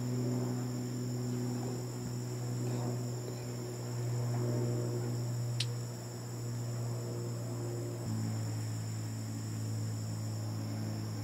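Steady chorus of singing insects, two high even tones that hold through without a break, over a low steady hum that drops slightly in pitch about eight seconds in. One small click near the middle.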